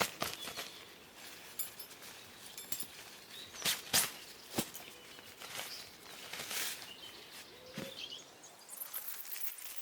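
Outdoor ambience with irregular sharp clicks and crackles at uneven spacing and a few faint bird chirps.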